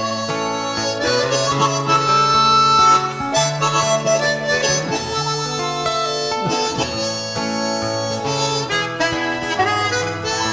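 Background instrumental music: a melody of long held notes over a steady accompaniment.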